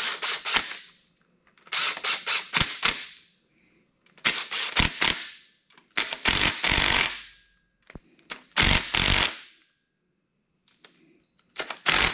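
DeWalt cordless impact driver hammering in short bursts of about a second each, five or six times with pauses between, as it runs down the oil pump bolts on an LS engine block.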